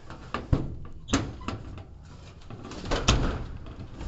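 Metal clicks and knocks from the rear door of an enclosed trailer box as its vertical locking bar is worked and the door swung open: a run of sharp knocks, the loudest about three seconds in.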